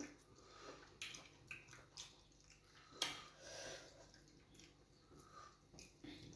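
Faint wet eating sounds of fufu and groundnut soup: soft squishes, smacks and small clicks of chewing and eating by hand, with sharper clicks about one and three seconds in.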